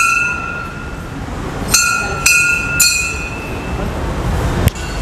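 Temple bell struck repeatedly, four strikes in the first three seconds, each ringing on with a steady metallic tone that fades out; a single sharp knock near the end.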